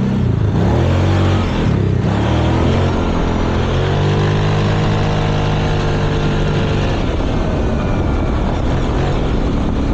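Kawasaki Brute Force 750 ATV's V-twin engine under throttle, its pitch rising and falling as it accelerates and eases off, holding a steadier note for a few seconds in the middle.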